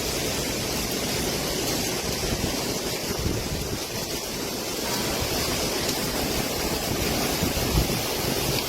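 Storm wind blowing hard and steadily, buffeting the microphone with a low rumble under a constant hiss.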